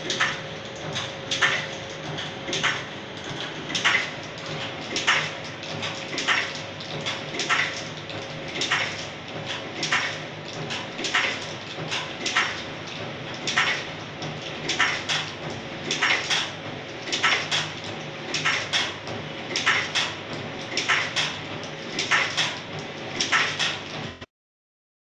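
Automatic capsule loading machine running: a sharp clack repeats a little under twice a second over a steady motor hum as it loads capsules into the filling plate. The sound cuts off near the end.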